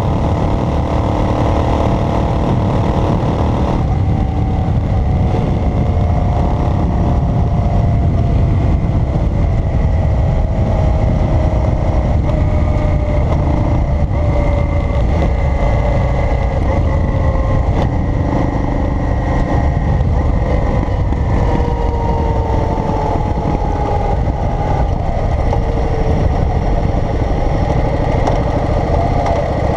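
A vehicle driving along a road: a steady low rumble of engine and road noise, with the engine's pitch sliding slowly down, rising again about two-thirds of the way through, then falling once more.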